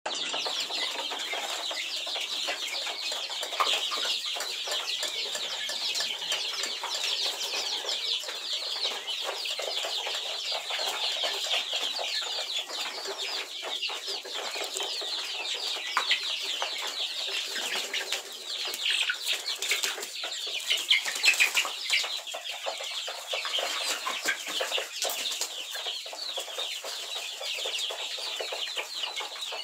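A large flock of young brown hens chirping and clucking without pause, many short high-pitched calls overlapping into a dense chorus.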